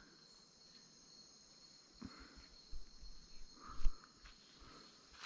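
Steady high-pitched chorus of rainforest insects buzzing without a break. A few dull thumps come through it, the loudest about four seconds in.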